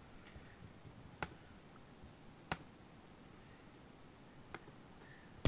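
A few sharp, isolated computer mouse clicks, spaced a second or more apart, with another at the very end, over faint room tone.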